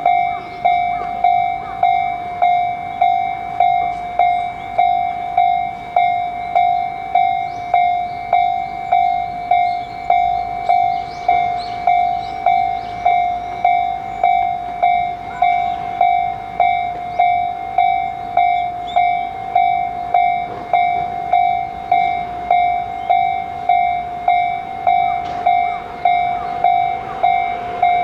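Japanese level-crossing warning bell dinging steadily, about one and a half strikes a second, the even "kan-kan" that sounds while the barriers are down for an approaching train.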